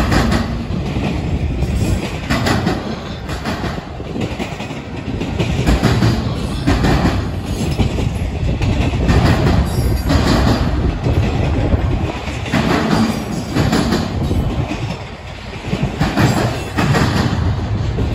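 Freight train's autorack cars rolling past at close range: a steady heavy rumble, with wheels clacking over the rail joints in repeated groups as each car's wheel sets go by.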